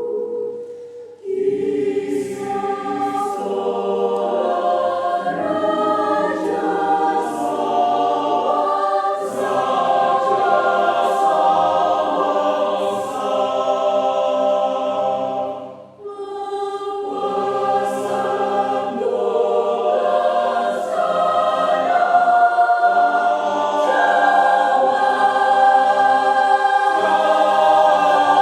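Student choir singing in several voice parts: sustained chords broken by crisp sibilant consonants. The voices drop away briefly about a second in and again just past halfway, then come back in.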